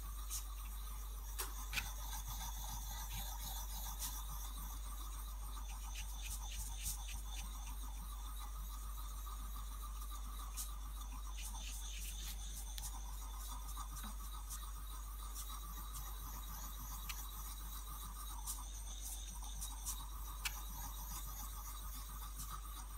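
Steel chisel blade rubbed back and forth on a wet homemade abrasive sharpening stone: a faint, steady wet scraping with scattered small ticks as the stone polishes the steel. A low hum runs underneath.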